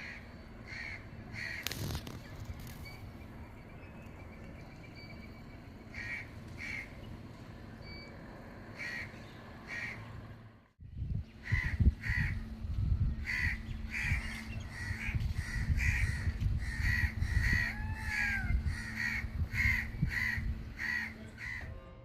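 Birds calling over and over in short repeated calls, about one or two a second. About halfway through the sound cuts out briefly and comes back with a heavy low rumble under the calls.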